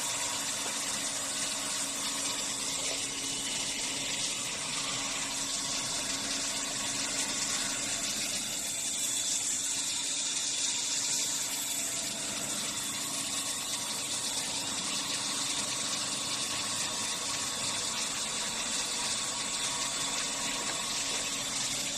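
Horizontal bandsaw running steadily for the whole stretch: an even hiss over a low steady hum, with no break or change in level.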